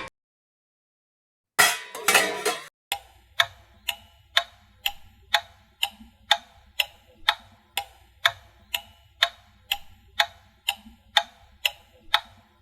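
Clock ticking sound effect: a short burst of clicks, then steady, even ticks about two a second.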